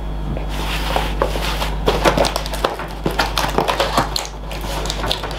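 Packaging rustling and crinkling as a parcel box is opened and rummaged through by hand, with irregular crackles and small knocks.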